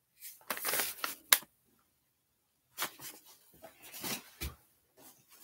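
Paper sewing-pattern envelopes rustling as they are handled and shuffled, in two spells. The first ends in a sharp click, and the second ends in a dull knock.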